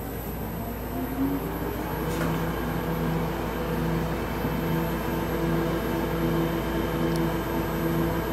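Electric motor of a ramen-machine flour mixer coming on about a second in, then running steadily with a low hum as the mixing shafts turn the dry flour in the trough.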